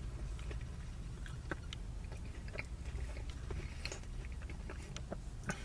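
A person chewing fast food with small wet mouth clicks, over a low steady hum.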